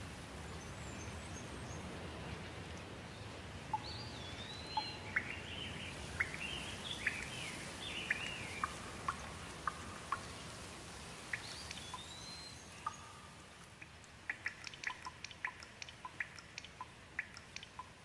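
Birds calling over a steady background wash, with a rising-and-falling whistled phrase about four seconds in and again near twelve seconds. In the last few seconds, water drips in quick, irregular plinks, about four a second.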